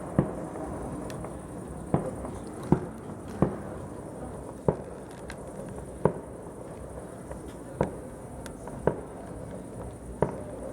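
Fireworks shells bursting, about nine sharp bangs at irregular intervals of one to one and a half seconds.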